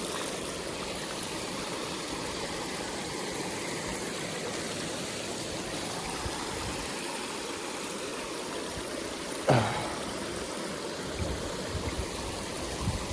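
Stream water flowing steadily, an even rushing wash. About nine and a half seconds in, a short sound slides quickly down in pitch over it.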